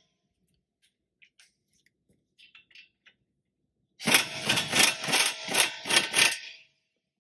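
A few faint ticks, then about four seconds in a pneumatic impact gun hammers in a run of short spurts for about two and a half seconds, running down the four bolts that hold a new front wheel hub bearing to the knuckle.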